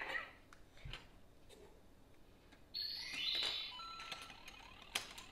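LEGO bricks clicking and rattling as loose pieces are picked through and handled on a tabletop. There is a sharp click just under a second in, and a short burst of scraping and rattling about three seconds in.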